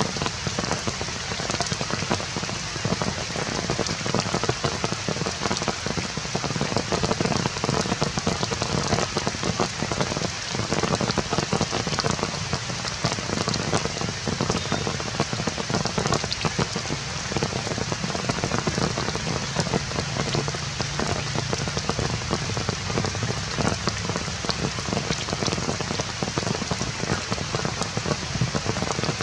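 Steady rain falling on surfaces, a dense hiss of many close drops that keeps an even level throughout.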